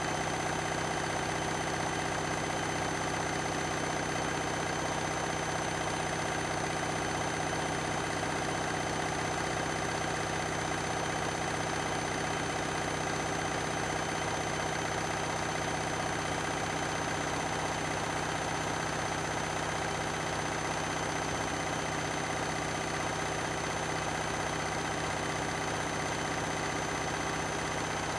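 Beko and Candy washing machines spinning side by side: a steady motor and drum hum with a constant whine, holding one speed throughout.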